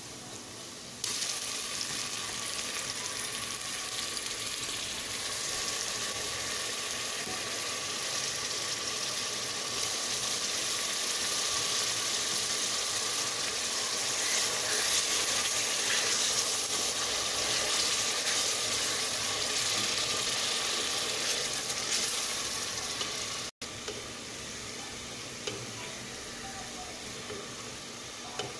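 Hot oil and onions in a pot sizzling loudly as tomato paste is spooned in about a second in and stirred with a wooden spoon. After a brief break near the end the sizzle goes on as a quieter, steady hiss.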